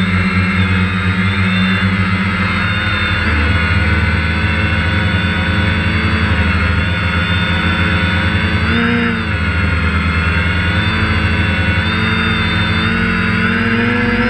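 DJI Phantom quadcopter's electric motors and propellers whining steadily, heard close up from the camera mounted on the drone. Several pitches waver together, with a brief dip and rise in pitch about nine seconds in as it manoeuvres.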